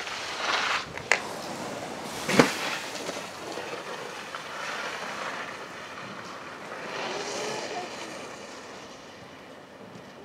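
Rushing wind noise on the microphone that swells and fades, with a short click about a second in and a sharper knock about two and a half seconds in.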